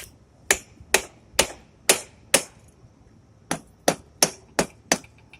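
Rubber mallet striking the cylinder head of a 1977 Honda CB750 to knock the head gasket loose and free the head: sharp blows about two a second, six in a row, a pause of about a second, then five more.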